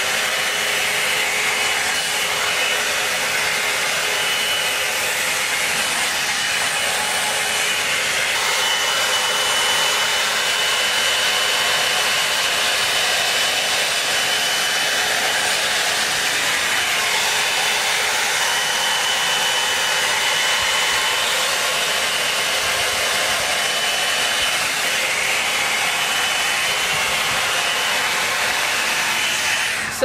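Drybar Double Shot oval blow dryer brush running steadily as it is worked through hair: an even rush of blown air with a faint high whine, cutting off near the end.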